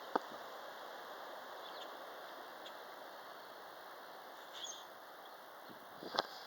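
Strong wind blowing, a steady rushing hiss. A sharp click comes just after the start, a faint high chirp about four and a half seconds in, and a few clicks near the end.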